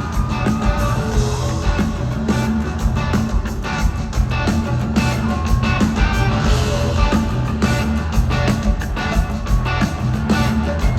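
Live rock band playing a song: electric guitar over bass and drums, with a steady beat.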